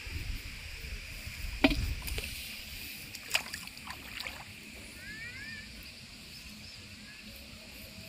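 A few sharp knocks over a low rumble of wind on the microphone: one loud knock about a second and a half in, then a quick cluster of smaller ones around three to four seconds in. A couple of short chirping calls, likely from birds, follow.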